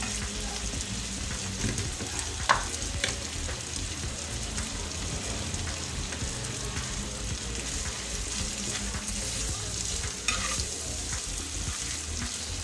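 Thin beef slices and ginger-garlic paste sizzling in oil on an iron tawa, with a metal spatula stirring and scraping against the pan. Two sharper clacks of the spatula stand out, about two and a half seconds in and about ten seconds in.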